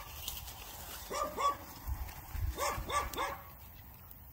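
A dog barking in short runs: two barks, then three quick barks about a third of a second apart.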